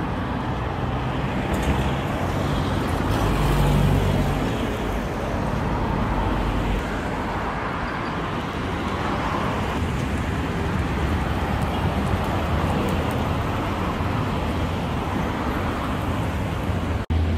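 Street traffic: cars driving past on the road with a steady rumble, one passing louder a few seconds in. The sound drops out for an instant near the end.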